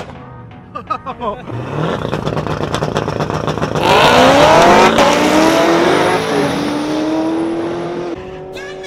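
Twin-turbo Chevrolet Camaro ZL1 V8 on a drag strip. It revs briefly, then about four seconds in launches hard: the engine note climbs steeply through the gears, loudest at the launch, and fades as the car pulls away down the track.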